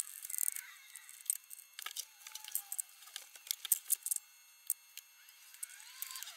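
Light clicking and clinking of small metal parts, tools and wires being handled on a workbench, with a few short squeaky chirps.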